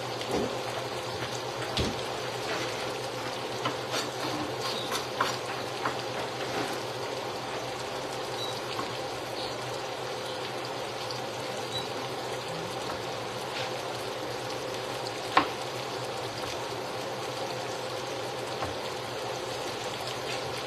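Steady sizzle of food frying in a pan, with scattered knife taps on a cutting board as sausages are cut into pieces, one sharper knock about fifteen seconds in.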